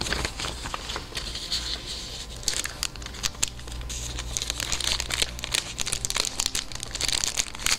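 Paper and plastic packaging being handled and crinkled, with a dense run of small irregular clicks and rustles.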